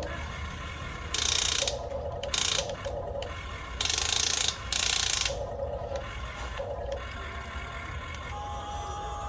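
Geared electric motors of a toy RC excavator whirring in short bursts as it is worked, four louder bursts in the first half over a steady low hum.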